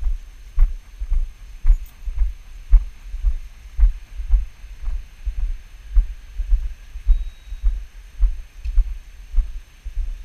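Walking footsteps at a steady pace: dull low thumps about two a second.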